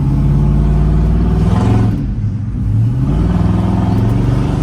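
Yamaha YZ450F dirt bike's single-cylinder four-stroke engine running and being revved. The pitch climbs about one and a half seconds in, drops back, then rises again near three seconds.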